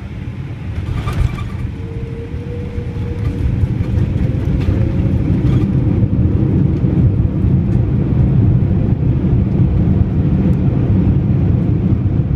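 Cabin noise of a Boeing 787-8 rolling on the runway after landing: a deep, steady rumble of engines and wheels that grows louder about four seconds in and then holds.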